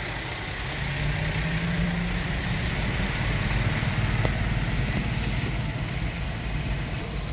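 A large vehicle's engine running with a steady low rumble in slow road traffic. A deeper droning tone joins about a second in and holds.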